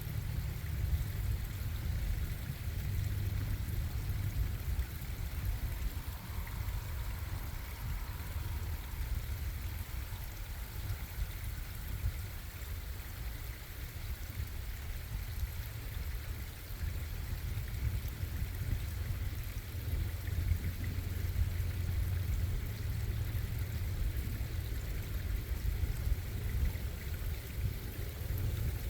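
Stream water flowing and splashing steadily, with a strong low rumble under a fainter hiss.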